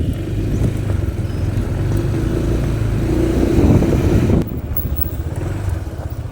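A vehicle engine running while on the move, getting a little louder and then dropping off sharply a little over four seconds in.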